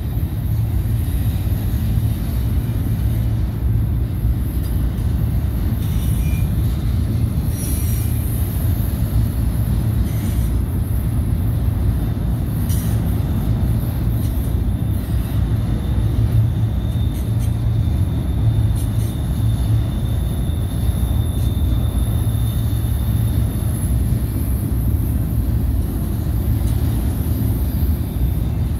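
Autorack freight cars rolling past, a steady low rumble of steel wheels on the rails. A faint high wheel squeal comes and goes about halfway through.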